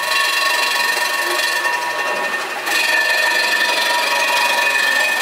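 Bridgeport milling machine with an end mill cutting an aluminum transmission bell housing in shallow passes: a steady, high-pitched cutting whine with several held tones over a hiss. It goes slightly quieter for about a second near the middle.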